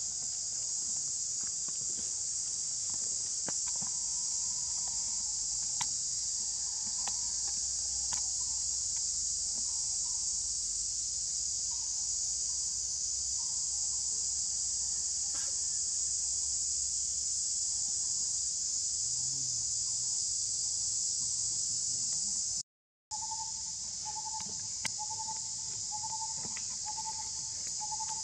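Steady high-pitched drone of forest insects, with faint scattered ticks. After a momentary dropout about 23 seconds in, a short note repeats about once every three quarters of a second.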